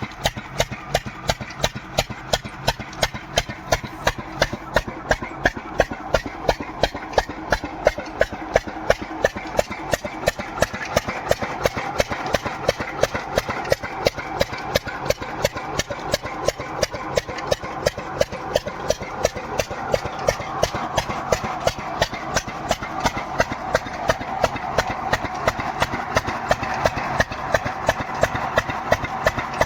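Slow diesel engine driving an irrigation water pump, running steadily with even exhaust beats about four a second.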